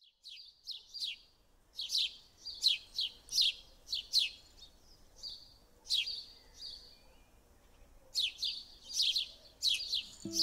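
A small songbird chirping: short downward-sweeping chirps in quick runs of several, with a few pauses between the runs.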